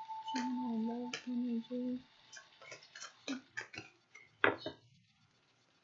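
Oracle cards being shuffled and handled: a string of sharp card snaps and taps, with a few low held notes in the first two seconds, stopping about a second before the end.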